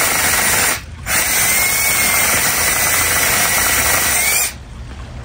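Cordless drill boring into an aspen log with a 7/8-inch paddle bit. A short burst is followed by a brief stop about a second in, then a run of about three and a half seconds with a steady whine that rises slightly just before the drill stops, about four and a half seconds in.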